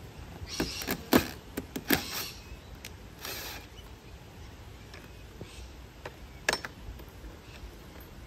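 Cordless drill driving screws into a gate catch on a PVC gate, in short bursts over the first few seconds. There is a sharp click about six and a half seconds in.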